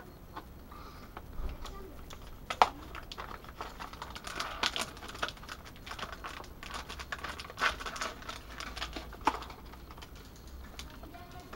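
Plastic bacon packet crinkling and rustling as it is cut open with a folding knife and the diced bacon is shaken out onto a wooden cutting board, with scattered sharp clicks and taps.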